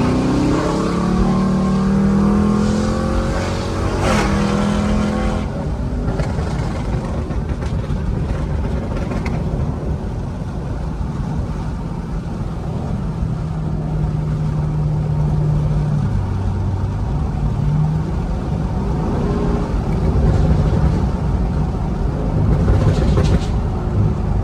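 Car engine accelerating with a rising pitch, climbing again briefly about four seconds in, then settling into a steady cruising drone with small changes in engine speed.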